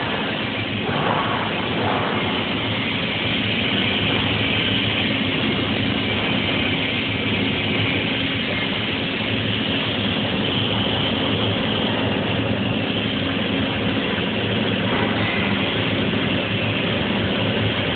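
CO2 gas-shielded welding arc laying a final capping pass: a steady hiss, with a steady low hum underneath.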